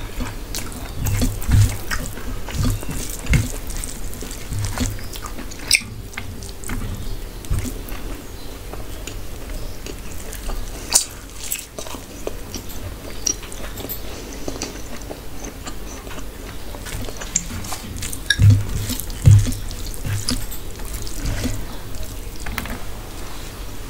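Wet, irregular clicking sounds of a hand mixing rice with mutton curry gravy on a metal plate, with the mouth sounds of eating as handfuls are taken and chewed.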